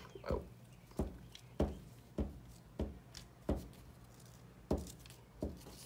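Glue stick rubbed over a torn magazine scrap on paper in short strokes, about eight dry scrapes roughly every half second to second.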